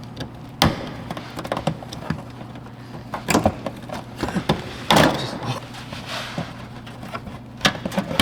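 Irregular plastic clicks and knocks, with a sharp one about halfway through, as a car's side marker light is pried out of the fender and handled.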